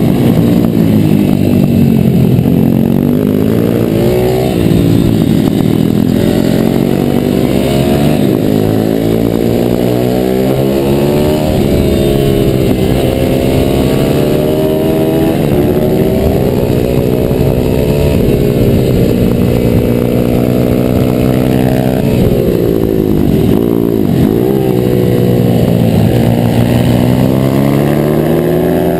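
Pit bike's YX140 single-cylinder engine heard on board at race pace: revving up through the gears and dropping back again and again as the rider accelerates, shifts and brakes for corners.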